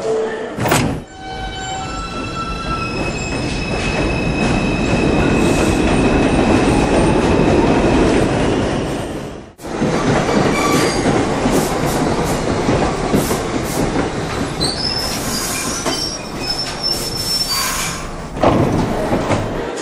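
New York City subway train running on the rails with a continuous rumble, wheels squealing in high steady tones. The sound breaks off sharply about halfway through and then resumes, and near the end a set of high tones steps upward in pitch.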